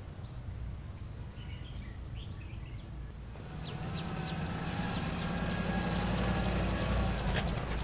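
Engine of an old open-top jeep running steadily as it drives up, its low hum coming in about three seconds in and growing louder as it nears. Birds chirp faintly.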